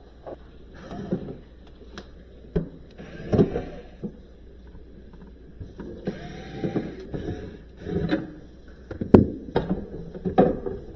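Irregular knocks, clicks and rattling from parts and tools being handled while freezer drawer slide hardware is taken apart, with a sharp knock about two seconds in, another soon after, and a loud one about nine seconds in.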